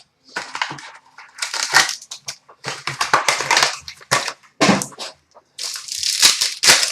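Wrapping on hockey card boxes and packs being torn open and crinkled: a run of irregular crackling, rustling bursts with short pauses between them.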